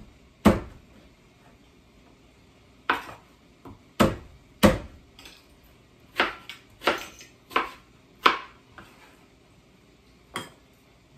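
Kitchen knife slicing ginger on a plastic cutting board: about ten sharp knocks of the blade hitting the board, spaced unevenly a half-second to a couple of seconds apart.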